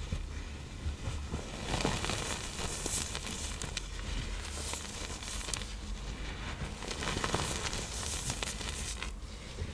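Pressed blocks of iron oxide powder and cornstarch being crushed and crumbled by hand, a run of many small dry crunches and clicks.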